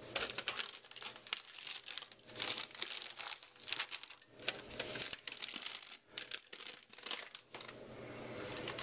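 Energy drink cans being handled and set into a refrigerator, with the packaging crinkling and scattered sharp knocks and clicks.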